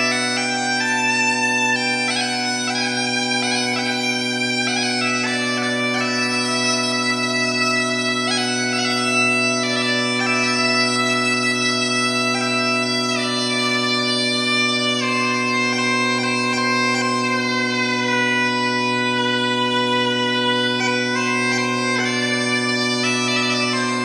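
Bagpipes playing a slow melody over a steady low drone, with some notes bending in pitch.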